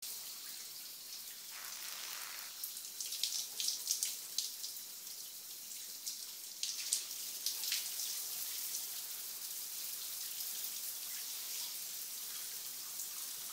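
Shower running: a steady hiss of water spray, with irregular sharp spatters, most of them between about three and eight seconds in.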